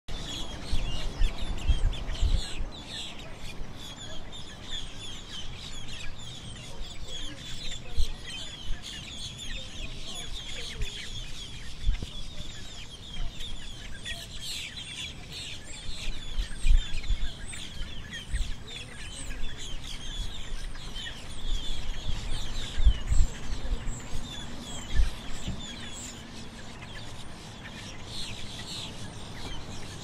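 Many small birds chirping and twittering together in a dense, continuous chorus of short high chirps, with occasional low thumps.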